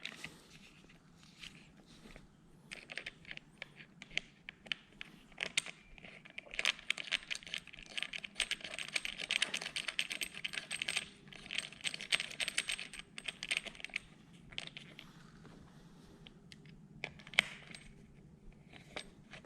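Light metallic clicks and clinks of hand tools and mounting hardware during a handguard bracket install, with a dense run of rapid clicking in the middle.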